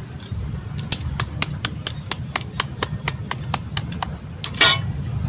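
A spoon tapping a balut eggshell to crack it: a quick run of even clicks, about four a second, then one louder crunch near the end.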